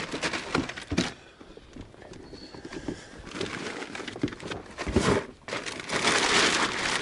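Rustling and crinkling with a few sharp knocks as a landing net and gear are handled in an inflatable boat. The knocks come in the first second, and the rustling grows louder near the end.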